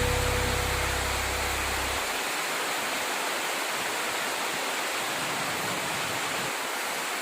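Steady rushing noise, with a low hum under it that stops about two seconds in.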